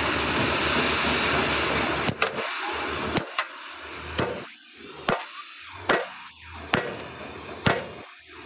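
A steady, loud machine noise that stops about two seconds in, followed by sharp single knocks about once a second: hammer blows on the steel of a dumper body being fabricated.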